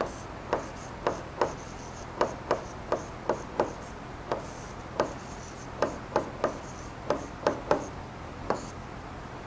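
Pen tapping and sliding on the glass of an interactive touchscreen board during handwriting: a string of irregular sharp taps, about two a second.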